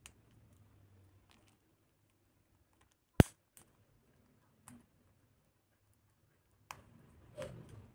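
A pet parakeet's beak biting and cracking a plastic pen: scattered sharp clicks, with one much louder crack about three seconds in and a short burst of crunching near the end.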